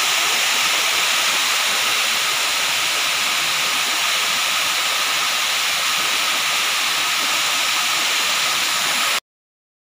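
Transformer water spray fire-protection system discharging: many spray nozzles on the pipework around the transformer giving a loud, steady hiss of water mist. It cuts off suddenly near the end.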